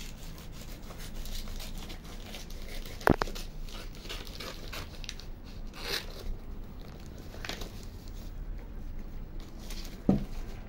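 Adhesive vinyl contact paper rustling and crinkling as it is handled, with two sharp clicks, one about three seconds in and one near the end.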